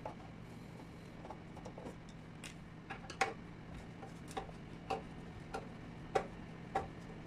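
Screwdriver turning a small screw in the metal housing of a stage light, giving sharp metallic clicks. A few come scattered at first, then a regular run of louder clicks about every half second to second, from about three seconds in.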